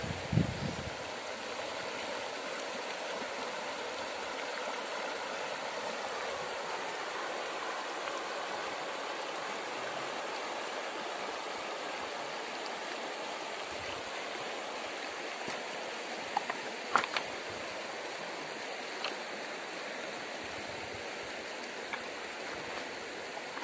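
Shallow river flowing over a bed of stones and pebbles: a steady rushing, babbling streamflow. A few short sharp clicks stand out about two thirds of the way through.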